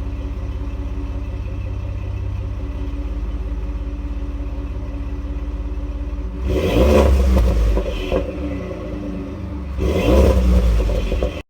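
Ford F-150's 3.5 L twin-turbo EcoBoost V6, fitted with catted downpipes, idling steadily and then revved twice: once about six seconds in for roughly a second and a half, and again near the end.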